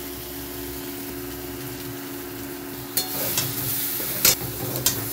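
Spiced potato wedges frying in oil in a metal kadai over a raised gas flame: a steady sizzle over a low steady hum. From about three seconds in come several sharp scrapes and knocks of a spatula stirring them against the pan.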